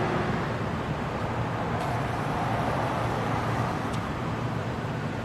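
Steady city background noise of road traffic, an even rumble and hiss with no single event standing out.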